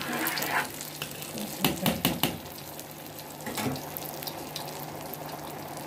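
Spoon stirring thick, simmering khichdi in a metal pot, with a few sharp clicks of the spoon against the pot about two seconds in, over a steady hiss.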